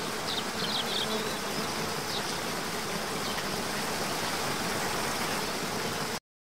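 Steady rush of water pouring down a cascading waterfall, with a few short high chirps near the start and again about two seconds in. It cuts off abruptly near the end.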